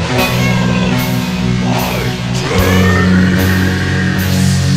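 Slow funeral doom metal: heavy sustained low chords, the chord changing about halfway through, with a cymbal struck regularly a little more than once a second.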